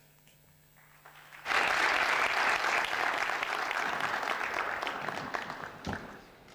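Audience applauding. The clapping starts suddenly about one and a half seconds in after a quiet moment, holds steady, and fades away near the end.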